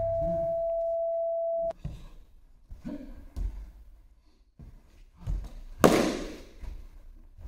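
A steady electronic tone for the first couple of seconds that cuts off suddenly. Then the sound of stick sparring on mats: scattered dull thuds of footfalls and blows, and a sharp, loud strike about six seconds in.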